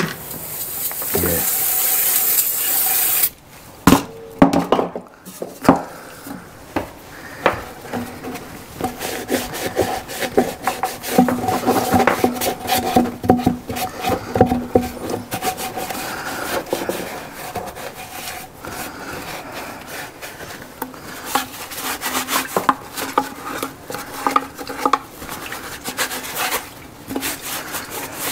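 A hiss of blown air that builds for about three seconds and cuts off, then hands rubbing, scraping and clicking at a two-stroke strimmer's parts as its fuel tank is taken off and cleaned.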